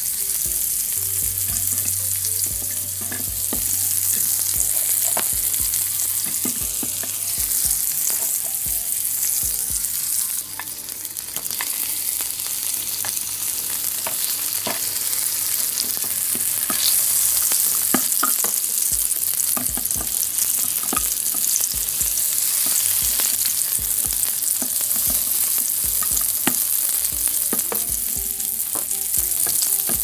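A frying sizzle sound effect, like meat cooking on a hot grill, hissing steadily, with many short light clicks scattered through it as plastic toy food and a plastic spatula are handled on a toy barbecue grill.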